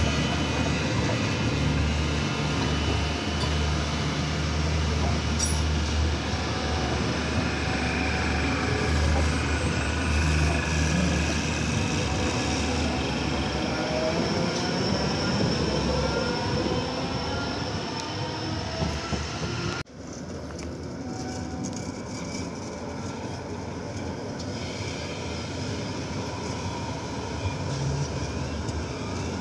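Articulated Stadtbahn light-rail cars passing at close range on curved street track: a steady rolling rumble with thin wheel squeal from the curve. A sudden cut about two thirds of the way in is followed by a second light-rail car rounding a curve, quieter.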